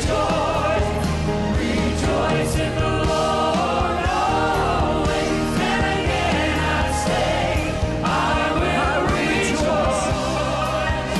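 Choir and congregation singing a gospel worship chorus backed by a band, with sustained low notes under the voices and repeated cymbal strikes.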